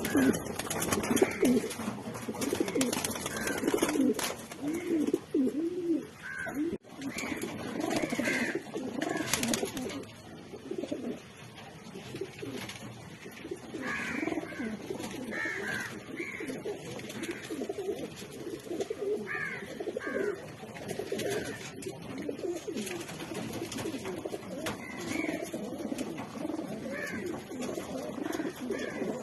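Racing homer pigeons cooing, many low overlapping coos throughout, with scattered higher short chirps from other birds.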